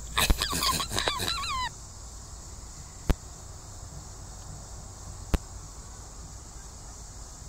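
A person's brief high, wavering vocal squeal for under two seconds, then the steady chirring of crickets, broken by two sharp clicks.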